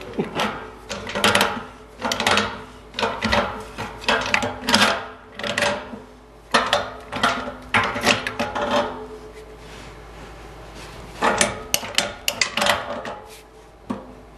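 A run of short, irregular scraping and rubbing knocks as an old cast iron radiator's pipe connection is worked loose, pausing for about two seconds past the middle before a few more.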